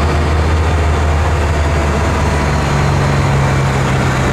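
Freightliner semi tractor's diesel engine running at low revs with a steady low note as the truck rolls slowly.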